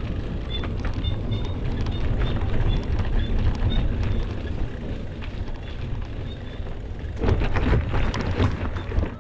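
Wind buffeting the microphone and road rumble while riding a bicycle, with scattered small clicks and rattles that cluster more loudly about seven seconds in.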